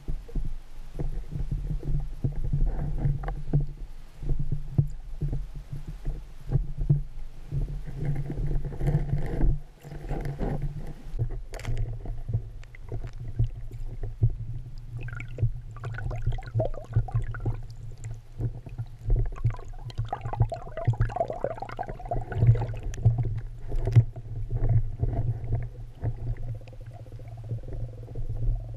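Underwater sound picked up by a diver's camera: a steady low hum, with bubbly, gurgling bursts every few seconds that match a scuba diver's exhaled bubbles.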